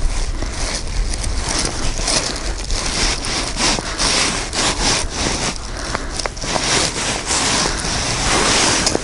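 Close, continuous rustling and rubbing of a plastic bag and jacket sleeves against the microphone as fingers rummage in a jar of soil for a bait worm, with a low rumble underneath.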